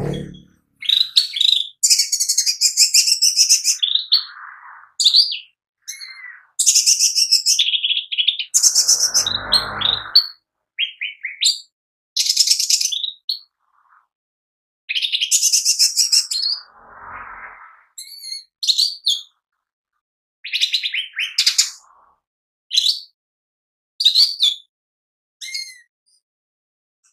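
Male leafbird (cucak ijo mini) singing loudly in rapid bursts of chattering, trilling high notes, phrase after phrase with short pauses between.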